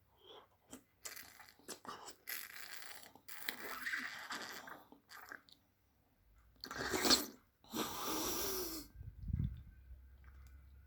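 A raw oyster being slurped off the half shell with lemon juice: a run of long, wet sucking slurps, the loudest two coming about seven and eight seconds in.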